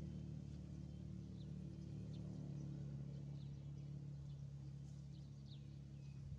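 A steady low mechanical hum, like an engine running at a distance, with faint short high chirps scattered over it.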